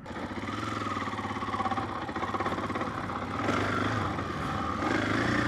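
KTM 500 EXC's single-cylinder four-stroke engine running as the dirt bike is ridden, its note rising and falling a little with the throttle.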